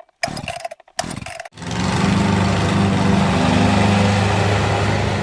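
Briggs and Stratton Quantum push-mower engine being pull-started on its newly replaced carburetor: a couple of short cranking pulls, then it catches about a second and a half in and runs steadily.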